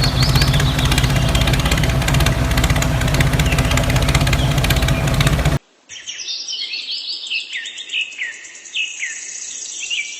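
An engine runs steadily with a fast, even knocking beat, then cuts off abruptly about halfway through. Birds follow, chirping with repeated short falling calls.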